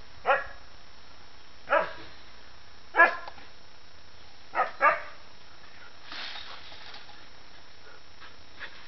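Dog barking: five short, sharp barks over about five seconds, the last two in quick succession.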